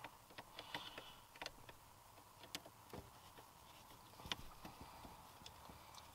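Faint, scattered clicks and light metal taps as an aluminium sport pedal cover and its fixing are handled and fitted onto a car's brake pedal.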